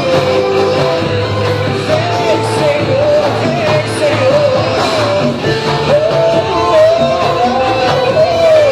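Live band playing rock music, with a wavering high melody line over steady bass and drums.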